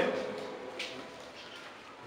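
A pause between spoken phrases: the last word dies away in the room's echo, leaving quiet room tone with one faint, brief sound about a second in.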